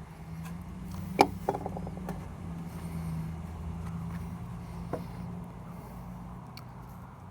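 A lighter used to light a tobacco pipe. A sharp click comes about a second in, followed by a quick run of small ticks, with another click near five seconds, over a steady low rumble that fades toward the end.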